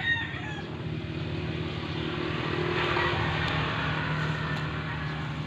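A motor vehicle's engine running steadily and passing by, growing louder to about the middle and easing off a little afterwards.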